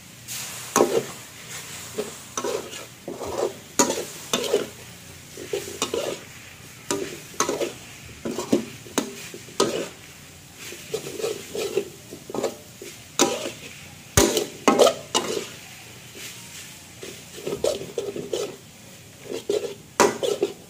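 Metal spatula scraping and clacking against a metal wok as noodles, meat and greens are stir-fried, in uneven strokes roughly twice a second over a low sizzle of frying, with one sharp clack about two-thirds of the way through.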